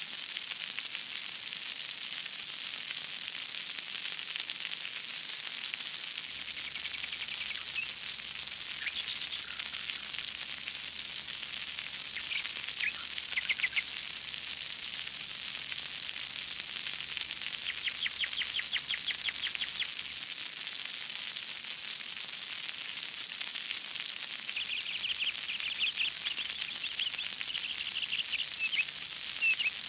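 Steady hiss of falling, splashing water, with short bird chirps and trills coming in every few seconds.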